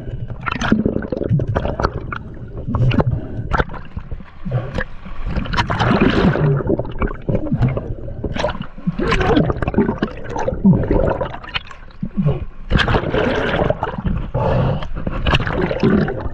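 Water gurgling and bubbling against an underwater camera as a diver hauls on a spear line, with irregular knocks and clicks throughout.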